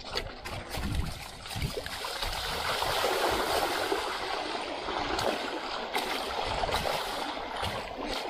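Mountain bike rolling over loose river stones with scattered knocks and rattles, then from about two seconds in its wheels cutting through a shallow stream with a steady, louder rush of splashing water.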